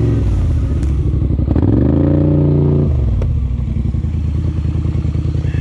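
ATV engine revving while the quad pushes through deep mud ruts. It climbs in pitch about a second in, holds, and drops back to a lower, uneven running a little past halfway.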